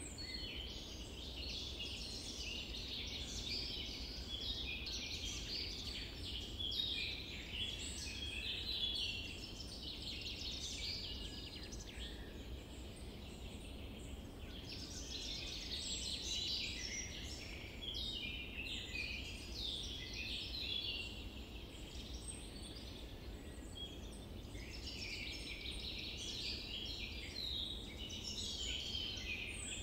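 A chorus of many small birds chirping and singing, a dense stream of short high notes that thins out twice for a few seconds, over steady low background noise.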